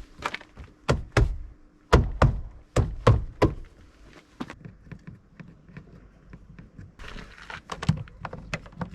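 Repeated thunks and knocks on a car's plastic door card as it is pressed and tapped back onto the door, a quick run of strong knocks early on and smaller taps near the end.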